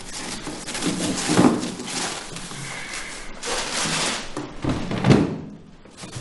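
Rummaging in an open refrigerator: continuous rustling and handling of items, with two dull thuds, one about a second in and one about five seconds in.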